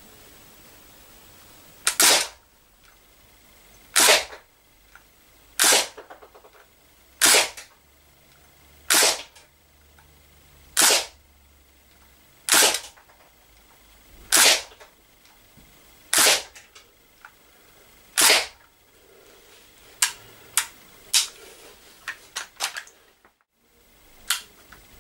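Crosman DPMS SBR CO2-powered 4.5 mm BB rifle firing single shots: ten sharp cracks with a short echo, about two seconds apart. Near the end come several quicker, shorter and fainter cracks.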